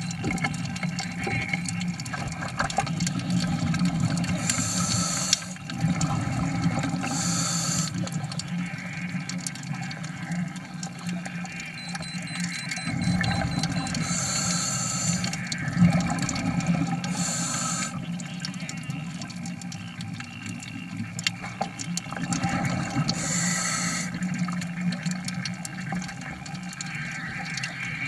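Scuba diver breathing through a regulator underwater: a short hissing inhale every several seconds, with exhaled bubbling and water noise between.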